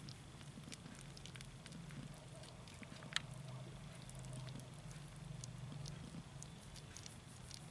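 Cat purring, a low steady rumble, under scattered faint crackling clicks from the nursing kittens and the fur being stroked; one sharper click about three seconds in.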